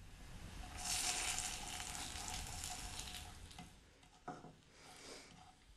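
Food sizzling in a frying pan, loudest in the first few seconds and then dying down, with a short knock about four seconds in.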